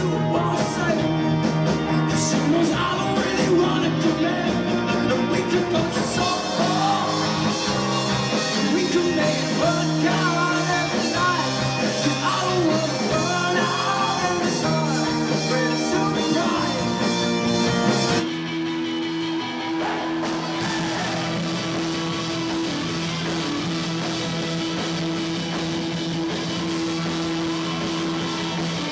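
Rock music with a singer and guitars. About two-thirds of the way through it cuts abruptly to a quieter, steadier guitar passage without singing.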